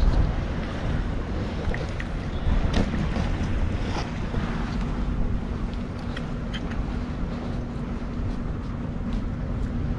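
Wind buffeting the microphone, a steady low rumble. A faint steady hum joins about halfway through, with a few small clicks scattered over it.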